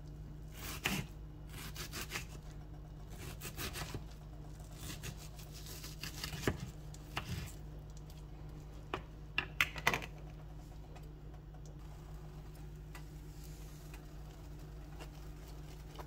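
Kitchen knife slicing through a crisp white onion on a wooden cutting board: irregular crunchy cuts and knocks of the blade on the board, with a cluster of sharper knocks about nine to ten seconds in. A steady low hum runs underneath.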